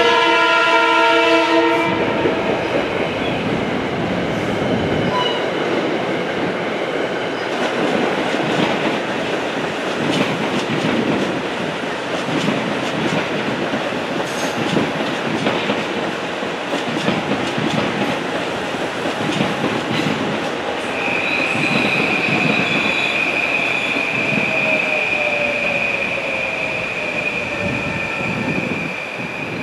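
A Metro-North passenger train's horn sounds one chord for about two seconds, then the train's coaches roll past and away, wheels clicking over the rail joints. From about two-thirds of the way in, a steady high-pitched whine sits over the fading rumble.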